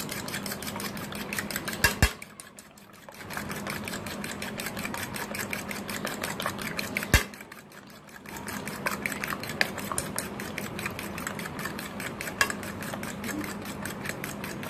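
Metal spoon beating raw eggs in a ceramic bowl: a fast, even clicking of the spoon against the bowl, several strokes a second. The beating pauses briefly twice, each time just after a sharper knock of the spoon on the bowl.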